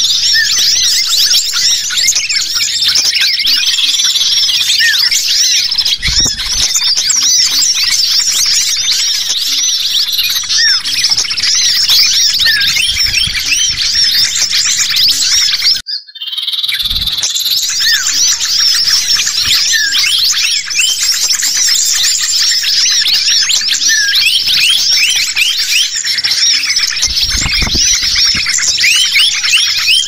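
Bird-lure recording of small songbirds in a noisy, agitated chorus, built around common iora (cipoh) calls: many overlapping quick chirps and short whistles with no let-up, broken once by a brief drop-out about halfway through.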